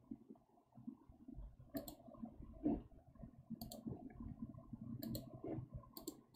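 Computer mouse button clicking, about five times, each click a quick press-and-release pair.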